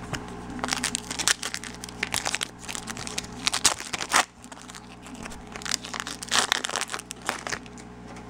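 Foil wrapper of a Bowman Chrome baseball card pack crinkling as it is torn open and the cards are pulled out, in three bunches of crackling.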